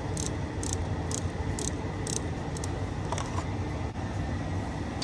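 A ratchet clicking about twice a second as it turns a 7mm Allen socket to loosen the rear brake caliper guide pins. The clicks stop a little after three seconds in, over a steady low hum.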